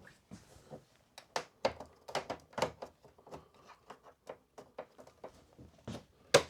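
Kickstand being fitted onto an Inmotion V9 electric unicycle: a run of irregular small clicks and knocks from the parts being handled and pushed together, with a sharper, louder click near the end as it snaps into place.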